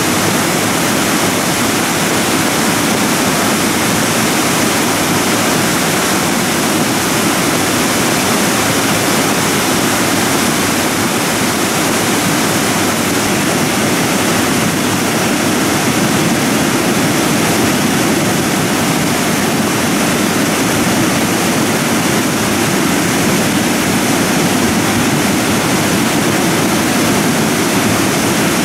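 Debris flow of mud and rock running down a channel in loose moraine, a steady rushing noise like a torrent.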